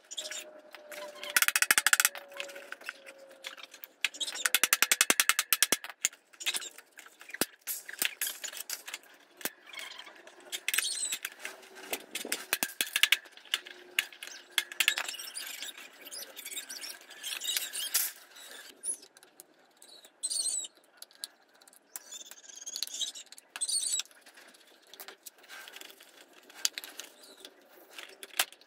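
Clicks, scrapes and rattles of an electric fan's plastic blade, wire guard and motor housing being taken apart by hand and with pliers, with a fast run of clicks about five seconds in. Short high squeaks recur throughout.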